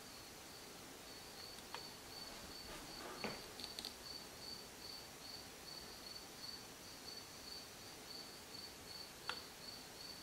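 An insect chirping faintly in an even rhythm, about three short high chirps a second, with a few faint clicks and a soft knock.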